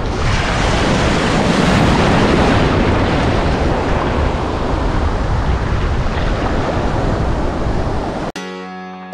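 Breaking surf and whitewater rushing close around, heard right at water level, with a deep rumble. About eight seconds in it cuts off suddenly and music with plucked notes begins.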